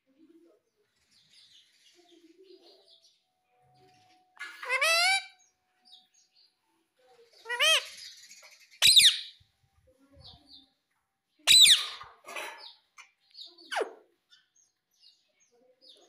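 A male Indian ringneck parrot (rose-ringed parakeet) giving about five short, sharp calls spaced by quiet gaps, some sliding down in pitch.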